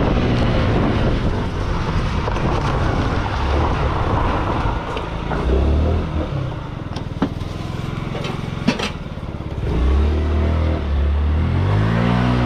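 Yamaha delivery scooter's small engine slowing to a stop and idling, then revving up again near the end as it pulls away. Two sharp clicks, about a second and a half apart, sound while it is stopped.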